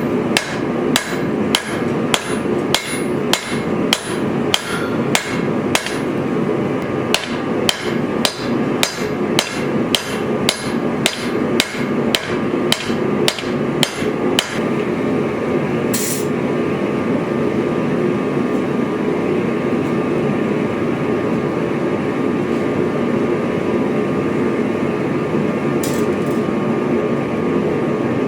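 Hand hammer striking leaf-spring steel on an anvil while forging a knife blade, a steady run of blows about two a second with a short break, stopping about halfway through. A steady rushing hum runs underneath and carries on alone after the hammering ends, with two single clicks.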